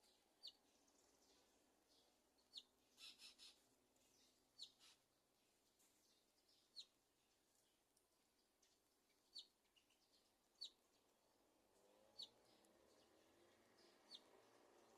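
Faint high, short bird chirps, single calls every second or two with a quick run of three about three seconds in, from a small bird such as a hungry fledgling calling for its parent to feed it.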